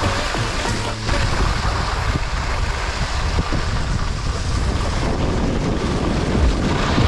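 Wind buffeting the microphone: a steady rushing noise with uneven low rumbling.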